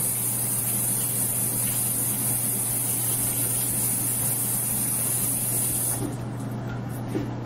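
Bathroom sink faucet running, water splashing over hands and into the basin as they are rinsed after soaping. The flow is shut off at the faucet handle about six seconds in.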